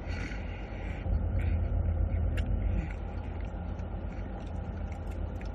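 Chewing and mouth sounds of someone eating a cheeseburger, over a steady low rumble that swells from about one second in to nearly three seconds, with a single click midway.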